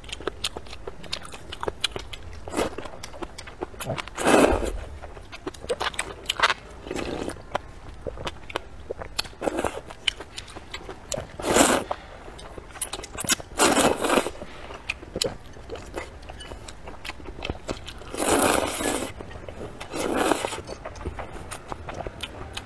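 Noodles and spicy broth being slurped, about five long slurps spread a few seconds apart, with wet chewing and smacking clicks between them.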